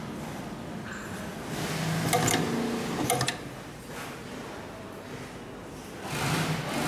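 Leather sofa cover being handled and flexed, rustling, with two short squeaky clicks about two and three seconds in.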